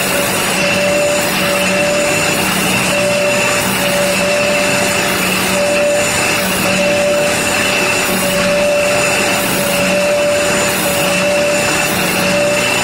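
Angle grinder running at full speed with a steady high whine while its disc grinds the carbide teeth of a circular saw blade held against it. The sound rises and falls slightly about once a second as each tooth is ground.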